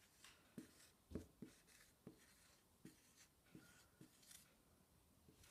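Faint strokes of a dry-erase marker writing letters on a whiteboard: a string of short, soft scratches and taps.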